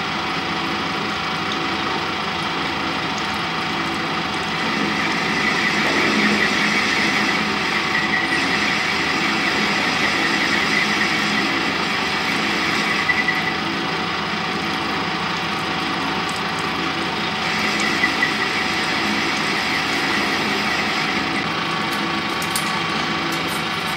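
Metal-turning lathe running, its cutting tool turning a bolt, with a steady machine hum and a high cutting hiss that grows louder for two spells, about five seconds in and again later.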